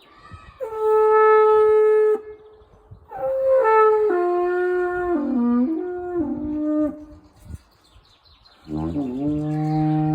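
Carnyx, a Celtic war trumpet, blown in three blasts: a steady held note, then a longer phrase stepping down in pitch, then a note that swoops up before holding.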